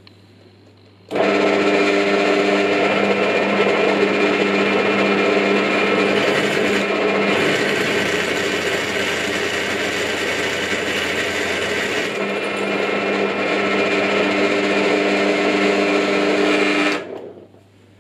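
Parkside PTBM 500 ES bench drill press switched on about a second in, its motor running steadily with a hum of several tones. For about five seconds in the middle the bit cuts into a 5 mm aluminium strip, making the sound noisier and hissier, and near the end the motor is switched off and winds down.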